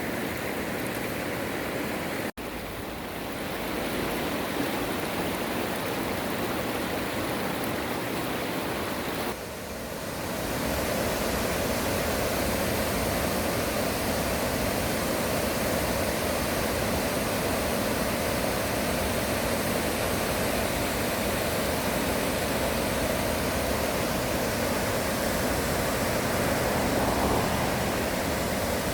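Valley stream water rushing steadily, a continuous even noise that shifts abruptly twice, about two seconds and about nine seconds in.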